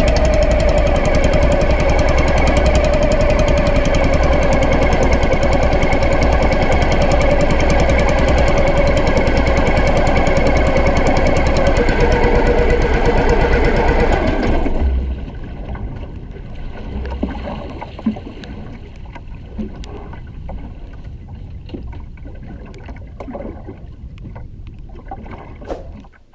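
An engine running steadily and loudly, then dropping away about fifteen seconds in. After that, quieter water sounds with scattered knocks.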